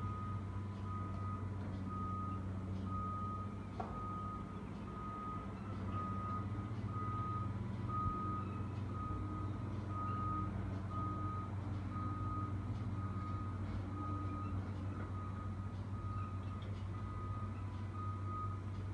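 Construction machine back-up alarm beeping steadily about once a second, over the low, steady running of heavy diesel machinery.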